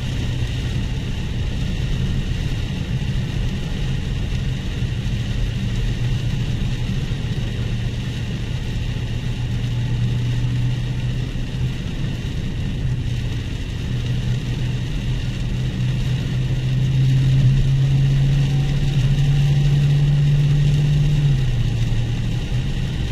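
Dodge Challenger Scat Pack 1320's 6.4-litre HEMI V8 droning steadily at low speed, heard from inside the cabin over an even hiss of heavy rain and wet-road noise. Near the end the engine note rises and grows louder for a few seconds, then drops back suddenly.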